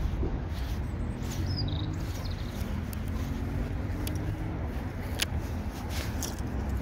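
Steady low outdoor rumble with a faint engine drone, like a distant vehicle, in the middle. A short high chirp comes about a second and a half in, and two sharp clicks near the end.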